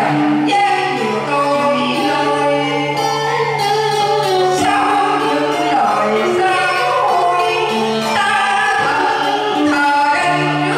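Music: a group of voices singing a song together over a low note held through most of it.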